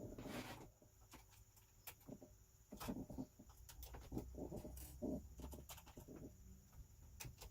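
Faint, scattered clicks and small handling noises of a mini screwdriver taking out the small screws at the sides of a laptop screen.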